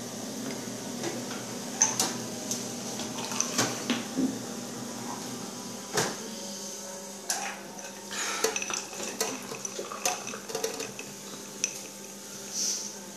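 Clinks and knocks of dishes and cutlery being handled, coming at irregular intervals, with a cluster of sharp clinks from about seven to eleven seconds in.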